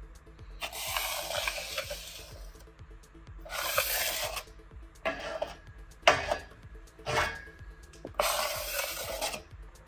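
A flat scraper blade dragged across a steel workbench top in about six separate strokes, scraping up spilled transfer-case fluid, with a short sharp knock about six seconds in.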